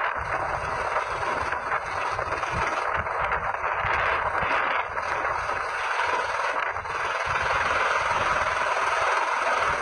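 Helicopter hovering low and lifting off, its rotor and engine making a steady rushing noise, with the rotor downwash buffeting the microphone in an uneven low rumble.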